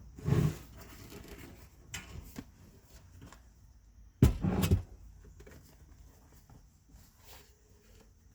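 Handling noises: two short bumps about four seconds apart, with light clicks and rustles between them.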